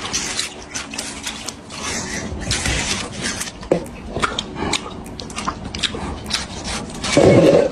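Cat chewing a slice of fresh watermelon: a run of quick, irregular wet crunching bites. A louder low sound starts near the end.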